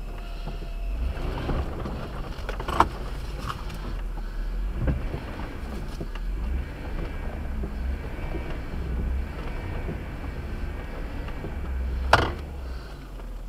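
Plow truck engine running, heard from inside the cab as a steady low rumble, with two sharp knocks, one about three seconds in and one near the end.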